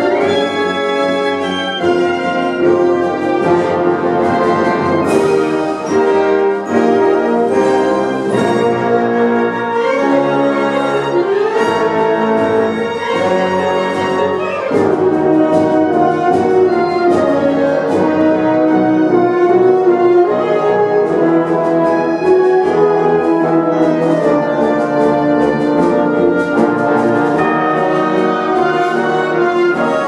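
Wind ensemble playing live, brass carrying sustained chords over woodwinds, growing fuller and a little louder about halfway through.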